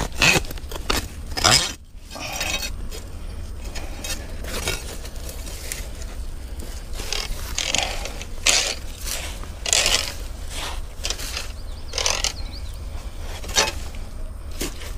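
Grass and brush rustling and scraping in irregular short bursts as gloved hands and a trap chain are worked through the vegetation.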